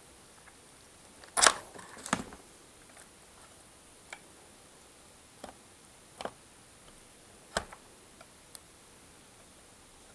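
Spring-loaded wire strippers snapping shut and pulling the insulation off a thin mains wire: two sharp clicks about a second and a half and two seconds in. A few fainter single ticks follow as the bared copper strands are handled and twisted.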